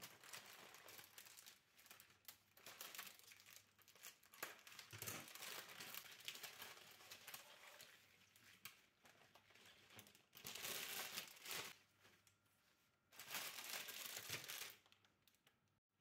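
Clear plastic flower wrapping crinkling and rustling as a bouquet is unwrapped by hand, with two louder spells of crumpling in the last third.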